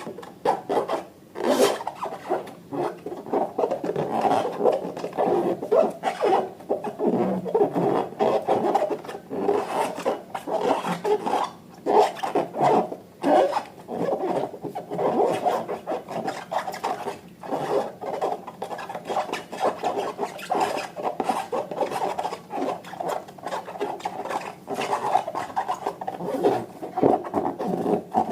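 Slime being squished and worked by hand: a continuous run of irregular rubbing, squelching strokes.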